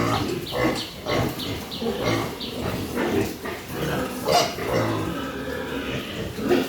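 Pigs in their pens grunting and squealing: many short calls overlapping, with a run of short high cries in the first couple of seconds.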